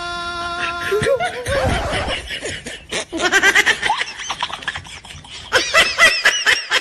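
A steady held tone that stops about a second in, followed by laughter in quick repeated bursts that grows higher-pitched near the end and cuts off suddenly.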